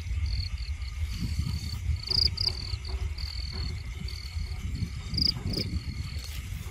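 Insects trilling in short high-pitched bursts, each under a second, repeating over and over, over a low rumble and light rustling of leaves.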